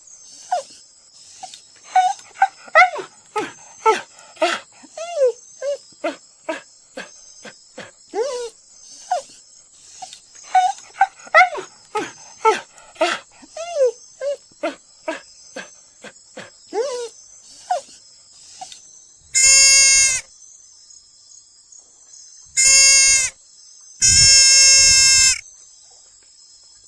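Animal calls: a quick series of short, pitch-bending calls for the first two-thirds or so, then three longer steady-pitched calls, the last one the longest. A steady high chirring of insects runs underneath.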